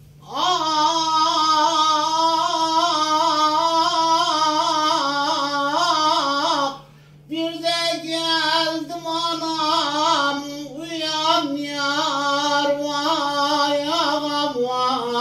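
A man singing an Elazığ folk song unaccompanied, in long held and ornamented notes with no beat. He sings two phrases with a short breath about halfway through. A faint steady hum lies underneath.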